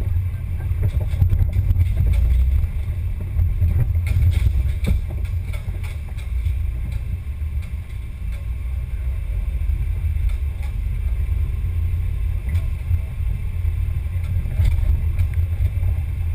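RC scale crawler driving over a rough trail, heard through its own onboard camera: a steady low rumble of chassis vibration and motor with occasional small clicks and rattles.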